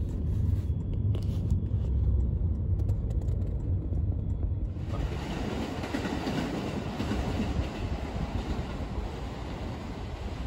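Low road rumble inside a moving car's cabin. About halfway through it cuts abruptly to steady outdoor city street noise, a broad rushing sound without distinct events.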